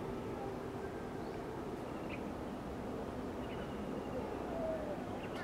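Outdoor ambience: a steady low background hum with a few faint, short bird chirps.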